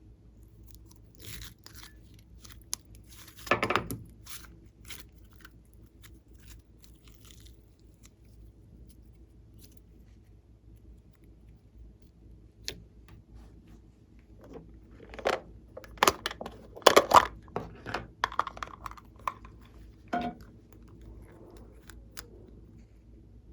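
Hands working sticky glossy slime, giving scattered wet clicks, pops and crackles: a short burst about three seconds in and a busier run of them later.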